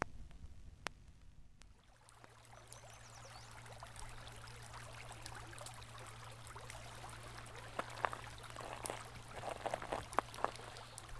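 Small creek trickling and gurgling over a low steady hum, starting about two seconds in, with a few louder gurgles near the end.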